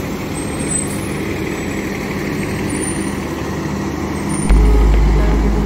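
City transit bus engines running as buses move through a bus terminal, one passing close by. About four and a half seconds in, a deep low rumble comes in and the sound grows louder.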